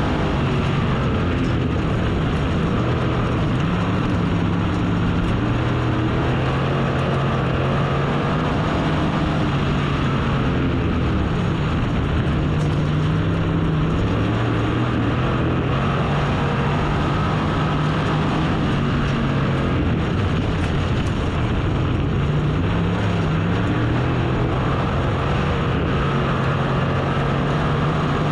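Race car engine running hard under a heavy roar, its pitch rising and falling over and over as it accelerates and backs off around the track.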